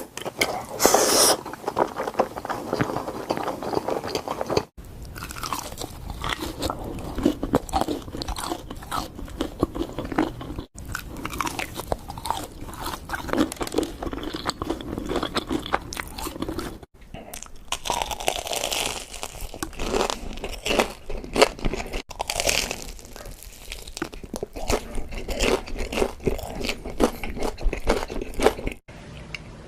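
Close-miked eating: crunchy bites and chewing, in several short clips joined by abrupt cuts, about every five or six seconds.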